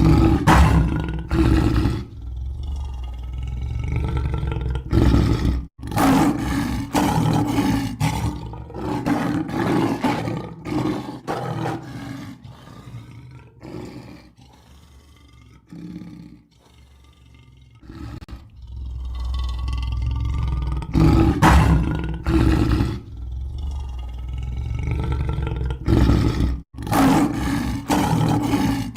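Lion roaring in repeated loud bouts of deep calls. The roaring eases to a quieter stretch a little under halfway through, then comes back loud.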